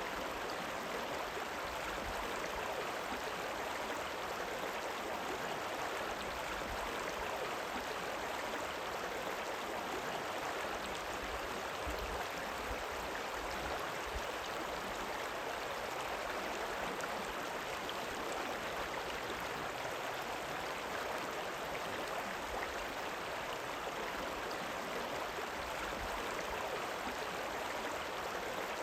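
River rippling and flowing: a steady rush of running water, even throughout.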